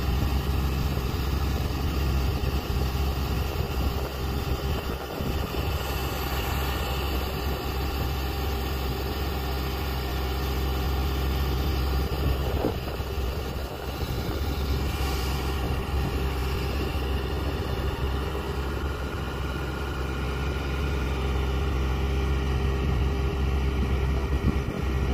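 Heavy 8x8 military truck's diesel engine idling steadily, a constant low hum.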